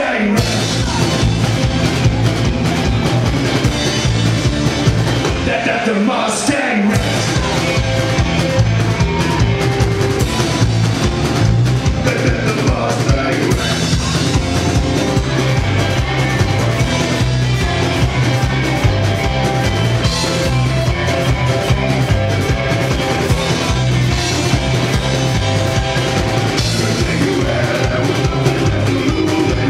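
Rock and roll band playing live on stage: electric guitars, bass and a full drum kit driving a steady beat. The bass and drums stop briefly about six seconds in, then the band comes back in.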